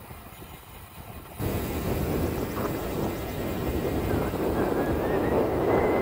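Wind rushing over the microphone of a camera on a moving bicycle, with road noise; it jumps suddenly louder about a second and a half in. A faint high whistle comes and goes near the end.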